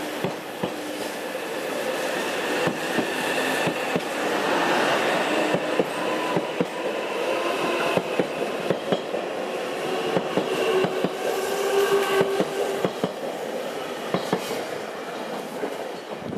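JR Hokkaido 789 series electric express train accelerating past at close range: its wheels click rapidly over the rail joints under a rushing rumble, with a whining traction-motor tone. The sound eases off near the end as the last car pulls away.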